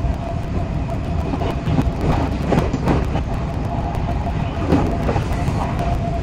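Odakyu 8000 series electric train running, heard from the driver's cab and sped up: a steady rumble and hum with rapid, dense clicking of wheels over the rails, and a few swells in the noise.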